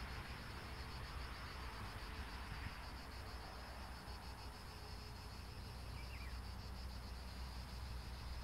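Insects singing in a fast, even pulsing rhythm on a hot summer day, with a steady low rumble underneath.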